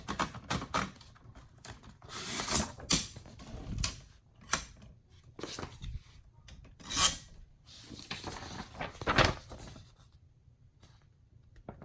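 A few typewriter key clicks at the start, then several bursts of rubbing and sliding on the 1962 Royal Signet typewriter, typical of paper being wound and pulled past the platen, stopping about ten seconds in.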